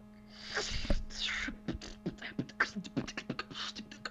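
Beatboxing: a breathy hiss about half a second in, then quick mouth-made kick, snare and hi-hat sounds in a fast rhythm, several strokes a second.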